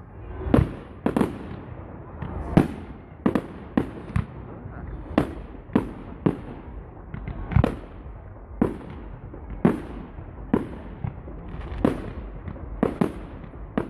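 Fireworks display: a steady run of aerial firework bursts, sharp bangs coming about once a second or a little faster, each with a short echo.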